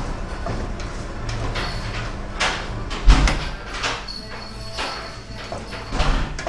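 Chicken pieces being added to a pot of frying masala and stirred with a metal spoon: irregular scraping and clatter, with a heavy thump about three seconds in.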